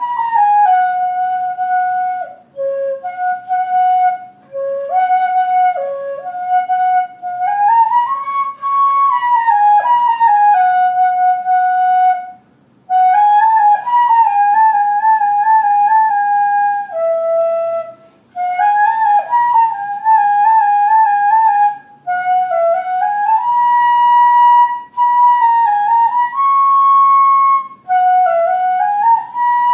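Background music: a flute melody playing one note at a time, in short phrases with brief pauses between them.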